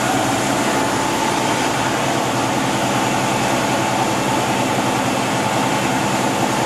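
Van de Graaff generator's electric motor and belt running with a steady hum, carrying charge up to the dome.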